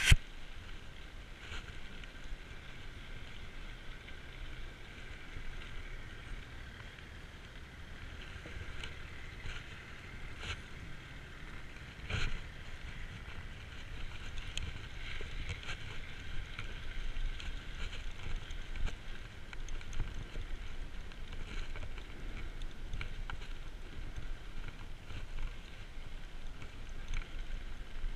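Mountain bike ridden along a paved path: steady tyre and wind noise with small clicks and rattles from the bike, and a sharper knock about twelve seconds in.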